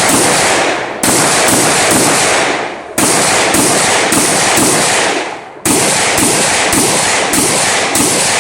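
Carbine rifle fire: strings of sharp shots, about two a second, each ringing out with a long echo, with short pauses between strings.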